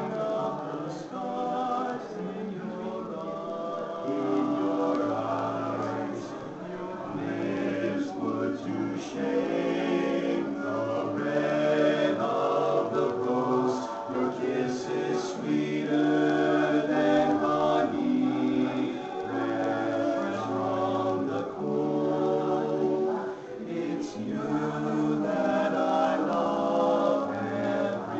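Men's barbershop quartet singing a cappella in four-part harmony (tenor, lead, baritone and bass), holding chords that change every second or two.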